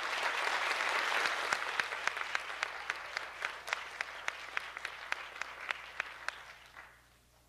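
Applause from an audience, loudest in the first two seconds, then thinning to a few separate hand claps that fade out about seven seconds in.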